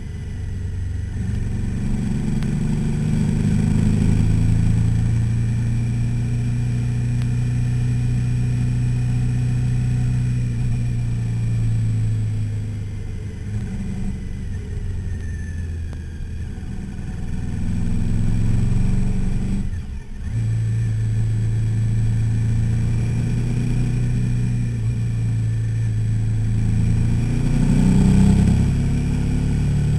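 Suzuki SV V-twin motorcycle engine running under way, its note rising and falling through the bends. The engine note dips and breaks briefly about two-thirds of the way through, then carries on steady, with revs climbing again near the end.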